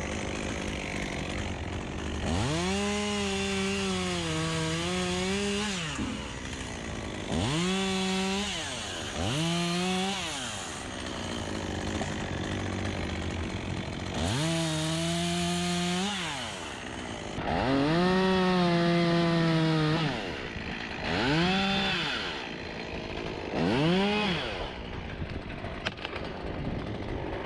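Two-stroke chainsaw revved to full throttle in about seven bursts, several seconds apart, cutting black poplar wood. Its pitch sags under load during the longer cuts and drops back to a lower running note between bursts.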